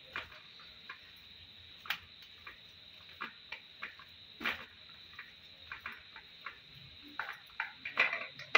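A hand mixing and pressing coarse chana dal paste in a steel plate: irregular soft squishes with scattered light clicks and scrapes of fingers against the steel, busier near the end.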